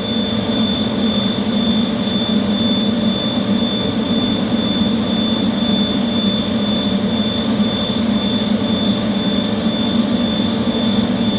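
Industrial air compressor running steadily, a constant machine drone with a thin high whine held over it.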